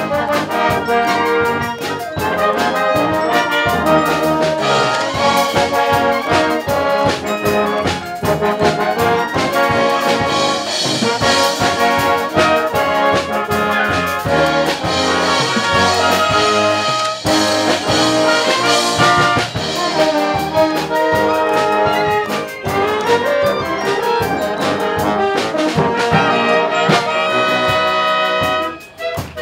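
School wind band of brass and woodwinds playing together over a steady beat. The sound drops briefly near the end.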